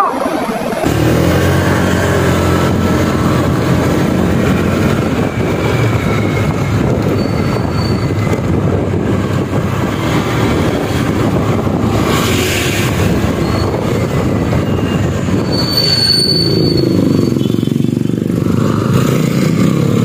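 Honda Click 125i scooter riding along a street: its 125 cc single-cylinder engine running steadily, with road noise, from about a second in.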